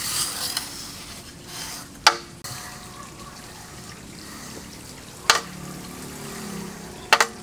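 Metal straightedge dragged across a freshly poured wet concrete slab to level it: a soft, wet scraping. Three sharp knocks stand out, about two, five and seven seconds in.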